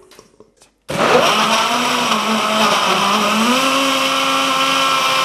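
Power Mill power blender starting up suddenly about a second in and running hard on large chunks of raw pumpkin; its motor pitch dips and then steps up about three and a half seconds in. The chunks are not being pulled down into the blades on their own.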